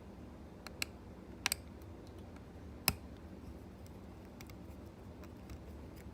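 Scattered small clicks and taps of a small screwdriver working at a screw inside an open MacBook Air, with one sharper tap about three seconds in.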